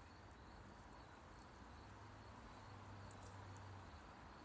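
Near silence: faint steady outdoor background noise, with a faint low hum in the middle.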